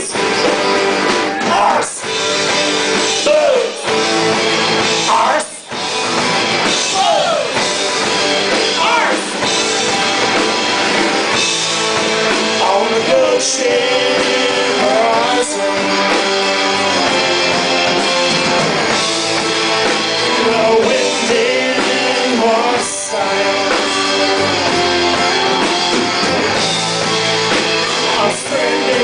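Live roots-rock band playing: a woman singing lead over strummed acoustic guitar, electric guitars and a drum kit.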